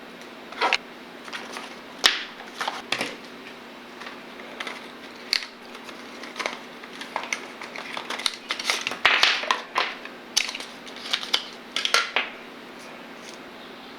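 Packaging being handled and opened by hand: irregular crinkling, crackling and sharp clicks, busiest in the latter half, over a faint steady hum.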